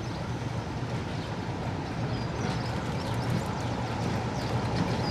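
Sulzer-engined mainline diesel locomotive running as it approaches slowly, a steady low engine rumble growing gradually louder.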